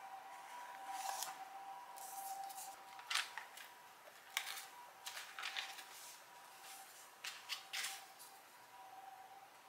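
Foil-lined paper wrapper of a block of butter crinkling and rustling in short strokes as it is peeled open, about nine in all, over a faint steady two-tone hum.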